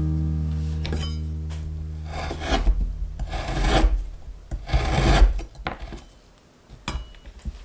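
Background music fading out, then three long rasping scraping strokes in food preparation, followed by a few light taps.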